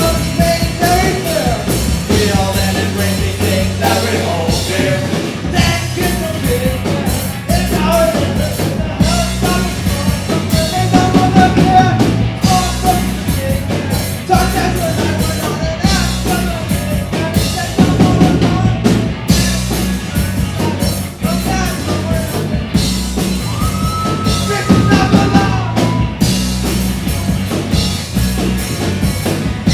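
Live rock band playing, with a lead singer's voice over electric guitar, bass and a drum kit.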